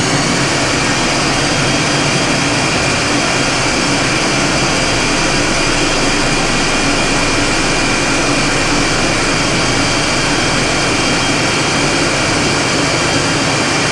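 Countertop blender motor running steadily at a high speed setting, with a constant whine, as it purées a thick carrot muffin batter.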